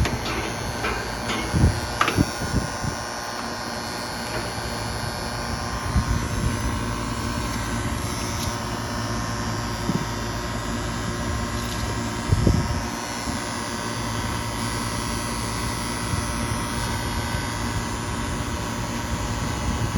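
Steady electrical buzz and hum from a three-phase outdoor air-conditioning condensing unit under power, its contactor buzzing: the contactor is burnt up. A few short knocks from the meter probes and tools, the loudest about two seconds in and about twelve seconds in.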